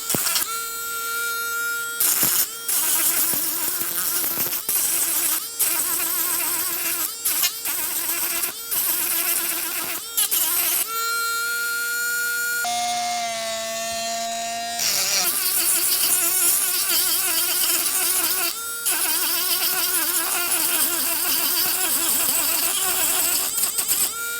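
Small electric mini polishing/sanding machine running with a steady high whine while its sanding bit grinds hardened body filler, with a gritty hiss; the pitch shifts lower for about two seconds midway and the sound dips briefly several times as the bit is lifted and pressed back on.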